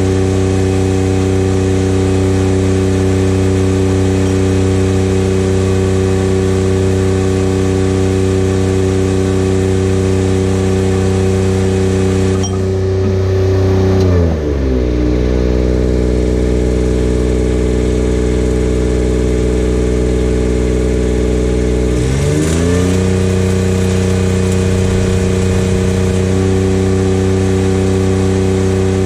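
Engine-driven welding generator running at full speed under welding load, with the crackle of the arc over it. About halfway through, the arc stops, the engine drops down to idle, and some eight seconds later it speeds back up as the arc is struck again.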